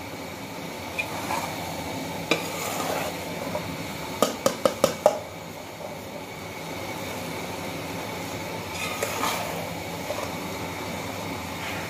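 Spatula stirring and scraping mixed vegetables roasting in a metal pot, with a steady sizzle as the last of their water cooks off. A little past four seconds in comes a quick run of five sharp knocks.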